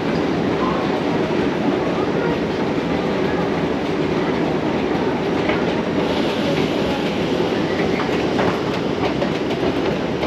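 Steady low rumbling drone of an underground metro station, heard while riding a running escalator up to the concourse. A brighter hiss joins about six seconds in, at the top of the escalator.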